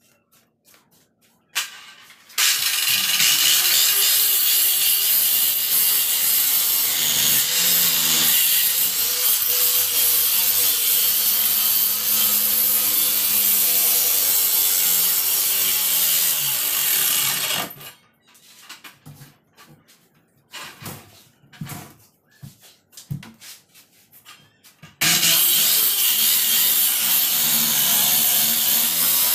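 Handheld electric circular saw cutting through the wooden panel of a speaker box. It starts a couple of seconds in, runs for about fifteen seconds and stops; after several seconds of scattered knocks it starts cutting again near the end.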